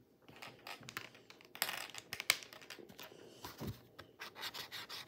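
Plastic brush-tip marker pens being handled: a run of small clicks and taps of pens and caps, mixed with scratchy strokes of a pen tip on a canvas board.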